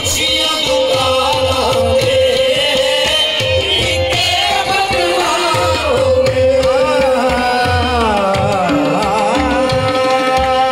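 Live qawwali music: voices singing long, gliding runs over a held drone, with tabla keeping a steady beat.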